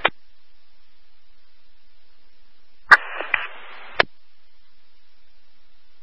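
Two-way radio squelch: a click as the last transmission drops. About three seconds in, a brief keyed transmission with no voice, a burst of static about a second long that opens and closes with sharp clicks. A steady low hiss runs underneath.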